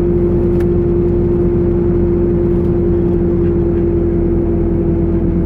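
1999 Pontiac Trans Am's LS1 V8 running with a steady, single-pitched whine over the low engine rumble: the unexplained noise the owner is chasing, which he says doesn't appear under load.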